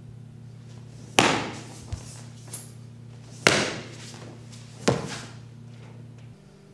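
Three loud, sharp impacts from a wooden-staff kung fu routine, spaced a second or two apart, with two lighter knocks between the first two, over a steady low hum.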